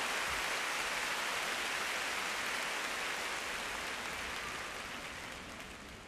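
Arena crowd applauding steadily, dying away over the last couple of seconds.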